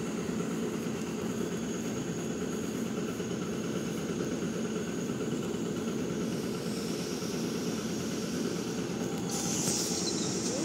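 ET2M electric multiple unit standing at the platform, its on-board equipment running with a steady hum and a faint high whine. About nine seconds in, a sharp hiss of air starts.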